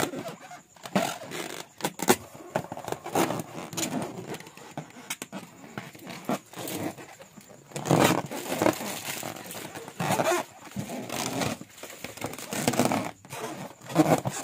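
An inflated latex balloon handled and rubbed by hands, giving irregular scraping and rubbing noises, busiest about eight seconds in and again near the end.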